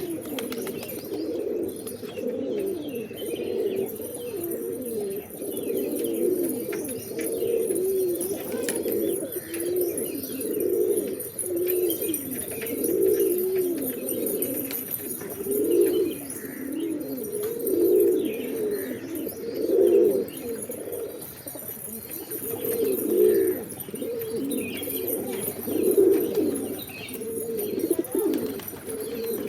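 Pigeons cooing, many calls overlapping without a break, with the low warbling coos swelling and fading every second or two.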